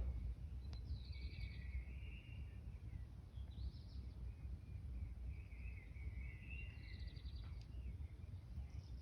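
Small birds chirping and twittering in short phrases a few seconds apart, over a steady low rumble of outdoor background noise.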